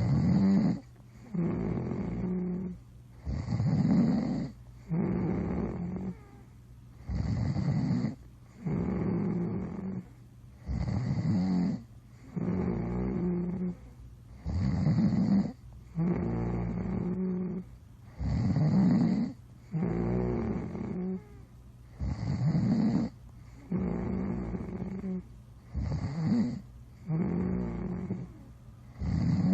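Snoring in a steady rhythm: a loud snore about every two seconds, with quieter breathing between.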